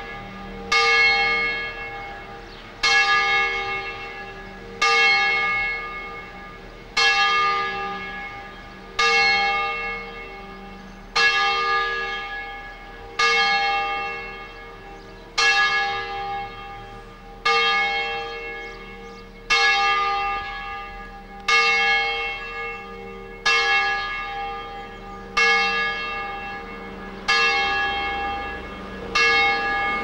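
A church tower bell tolling at a slow, even pace, about one stroke every two seconds, each stroke ringing out and fading before the next.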